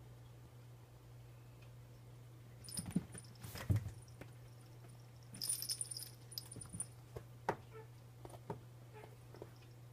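A cat biting and tugging at cat grass, crunching and rustling the blades in two bursts, about three seconds in and again from about five and a half seconds, with a faint metallic jingle. Single crunches follow, over a steady low hum.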